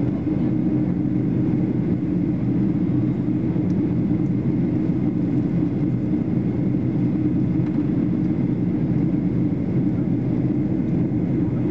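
Steady drone of an airliner's passenger cabin in flight, engine and air noise heard from a window seat during descent, with a strong low rumble and no change in level.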